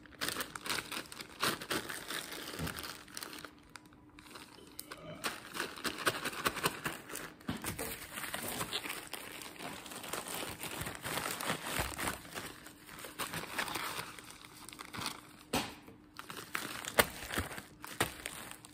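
Clear plastic bag holding Lego tires crinkling and rustling as it is handled, with scattered small clicks and one sharp click near the end.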